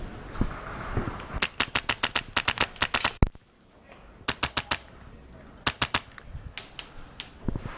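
Airsoft gun firing in rapid full-auto bursts: a long burst at about ten shots a second, then two short bursts of four or five shots, and a few single shots near the end.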